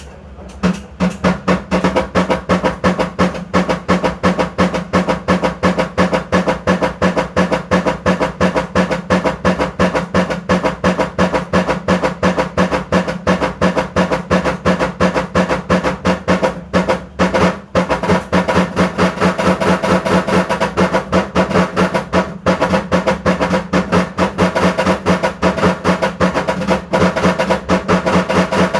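Washing machine running with a rapid, even knocking, about five knocks a second, over a steady low hum.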